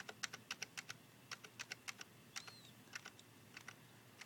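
Computer keyboard keys tapped in quick, irregular runs of faint clicks: repeated presses of the 1 and 2 keys to step the hour and minute up on a time-setting prompt.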